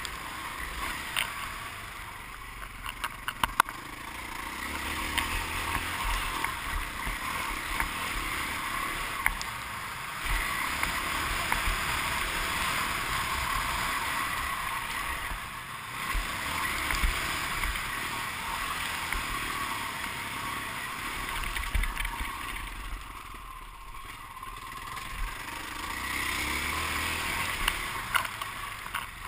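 Dirt bike engine heard from an onboard camera while riding a motocross track, the revs rising and falling with the throttle and easing off several times. Sharp knocks from the bike hitting bumps come through now and then.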